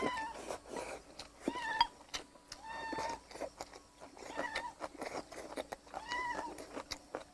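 A cat meowing again and again, about five short high meows a second or two apart, mixed with small clicks of chopsticks against a bowl.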